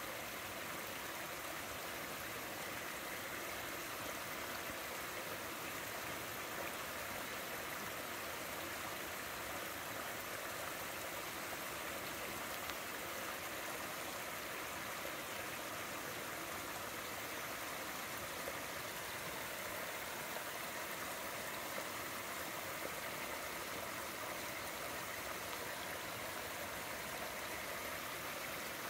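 Water of a shallow stream spilling over a small stepped weir: a steady, even rush.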